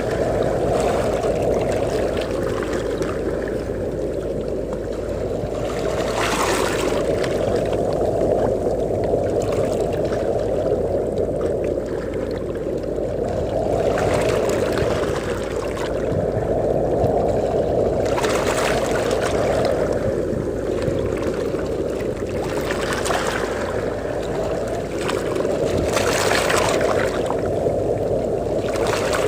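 Sea waves washing onto a beach with wind, a steady rushing that swells and ebbs every few seconds, with a sharper hiss of a breaking wave four or five times.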